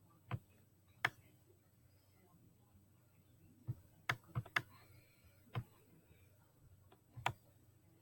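Sharp, irregular computer clicks while puzzle pieces are picked up and placed on a Chromebook: about eight in all, with a quick run of four a little after four seconds.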